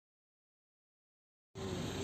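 Dead silence, then near the end a steady wash of outdoor noise starts abruptly.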